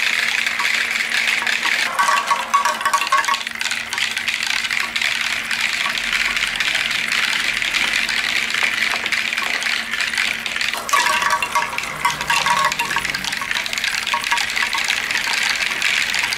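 Steady stream of water splashing and running down plastic marble-run slides and a clear plastic spiral, carrying small plastic balls along. Brief rolling rattles from the balls come about two seconds in and again around eleven seconds.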